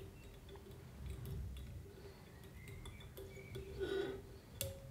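Faint ticks and rubbing as a wire whip-finish tool turns thread around the head of a fly held in a vise. A louder patch of rubbing and ticks comes about four seconds in. A single sharp metallic click with a short ring follows near the end.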